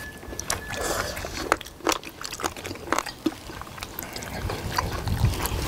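Close-up eating sounds: wet chewing of braised sea squirt, with sharp clicks of chopsticks and utensils against the dishes scattered throughout.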